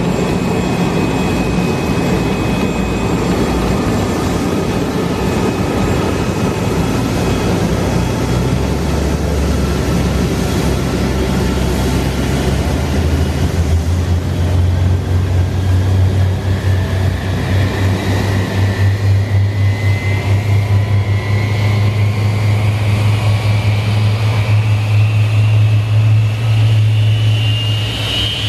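Boeing 747-400 jet airliner during pushback: a steady jet whine and rushing noise, with a heavy low drone that grows from about halfway. Over the last ten seconds or so a turbine whine rises steadily in pitch as an engine spools up on start.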